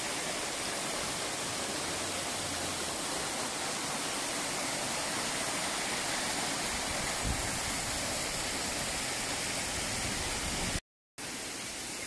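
Shallow mountain stream rushing and splashing over rocks in a small cascade, a steady rush broken by a moment of silence near the end.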